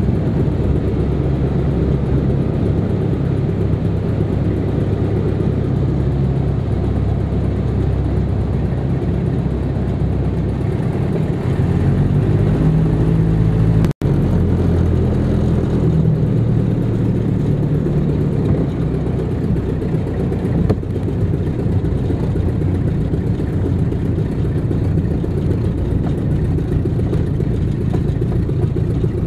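Cabin noise of a de Havilland DH84 Dragon, its twin Gipsy Major engines droning steadily through the landing approach and onto a grass strip. The engine note shifts a little before halfway, and the sound drops out for an instant at an edit.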